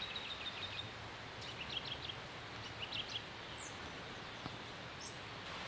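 Outdoor woodland ambience: small birds chirping in several short runs of high notes over a steady background hiss.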